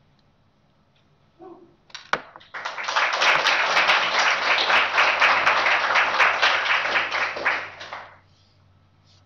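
Audience applauding: a few first claps about two seconds in, then dense clapping for about five seconds that dies away near the end.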